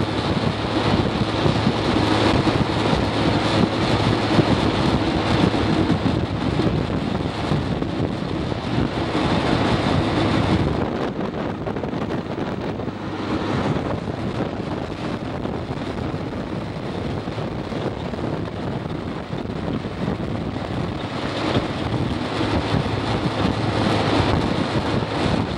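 Wind buffeting the microphone in a moving car, over steady road noise. The low rumble drops off sharply partway through.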